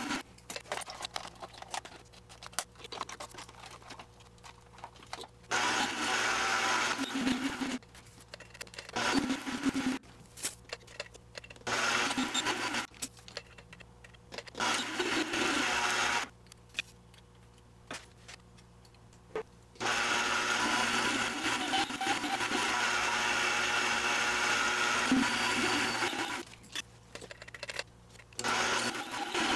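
Mini metal lathe taper-turning a mild steel bar. The cutting comes in several stretches of a few seconds each, with a longer one past the middle, and quieter pauses in between where only a low steady hum remains.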